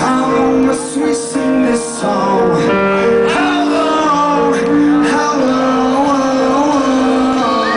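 Live stage music: held keyboard chords with voices singing over them.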